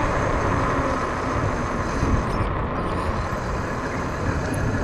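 Steady rushing of wind buffeting the microphone, with tyre rumble from an e-bike riding along pavement.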